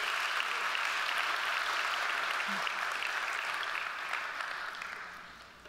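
Congregation applauding, a steady clatter of many hands that dies away over the last second or so.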